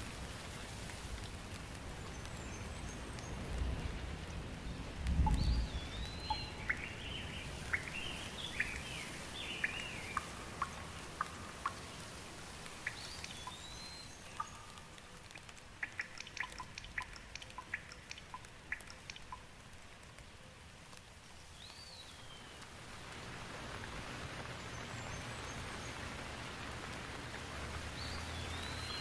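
Steady rain falling, with a brief low rumble about five seconds in. Birds call through it in short rising and falling chirps, and from about six to nineteen seconds in, single drops hit close by in sharp ticks.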